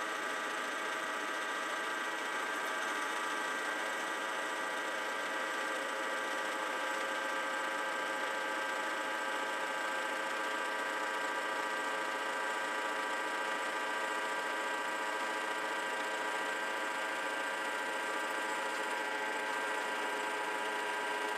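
Grizzly G0755 mill/drill running a slitting saw through angle iron: a steady machining whine with several held tones over a hiss of cutting, unchanging throughout.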